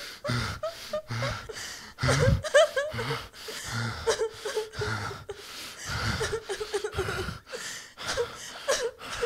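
A man laughing in repeated short, breathy bursts.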